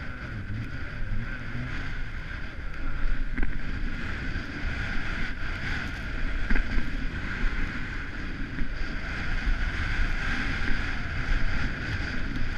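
Wind rushing over a GoPro's microphone during a downhill ski run, mixed with the skis hissing and scraping over cut-up snow. The rush swells and falls with the turns.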